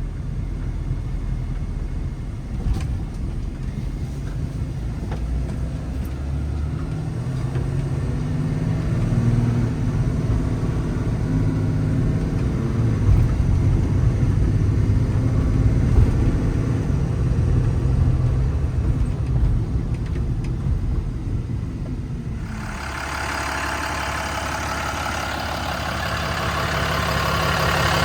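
6.7-litre Cummins turbo-diesel of a Ram 5500 running at a steady, low-pitched idle. About 22 seconds in the sound changes suddenly: the low rumble drops back and a busier, higher-pitched mechanical whir takes over.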